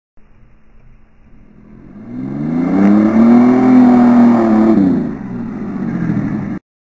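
An SUV's engine revving hard as it drives through mud: the pitch climbs, holds high for about two seconds, then drops back to a lower roar. The sound cuts off suddenly near the end.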